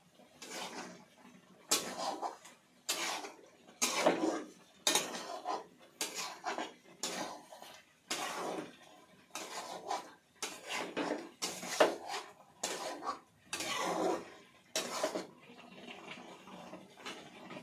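A spoon scraping and knocking against a cooking pot while stirring chicken, about one to two strokes a second; the stirring stops near the end.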